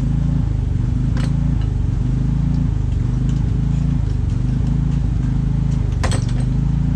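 A steady low machine drone runs throughout, with two sharp metallic clicks, one about a second in and one near the end.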